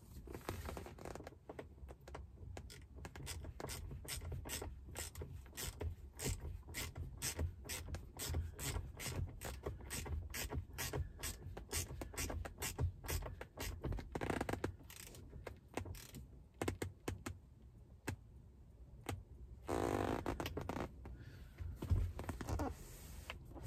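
Ratcheting driver clicking rapidly and repeatedly as a Torx T30 screw is turned into a seat armrest pivot. Near the end the clicking stops, followed by a short rustle and a single knock.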